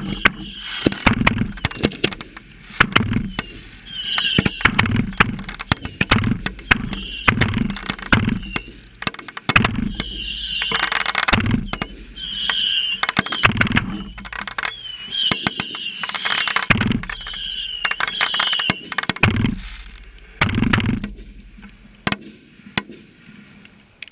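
Fireworks finale heard from the launch point: a dense barrage of deep launch thumps and sharp cracking bursts, with wavering high whistles cutting through again and again. It thins out and fades over the last couple of seconds.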